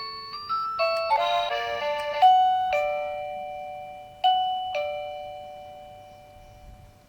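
Wireless digital doorbell chime playing an electronic melody: a quick run of notes, then a held chord, then two ding-dong notes about half a second apart about four seconds in, which ring out and fade away.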